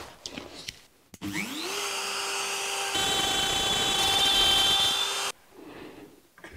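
Makita plunge router switched on, its motor whine rising quickly to full speed and then running steadily. It gets louder about three seconds in as the bit cuts a groove in plywood, then cuts off abruptly.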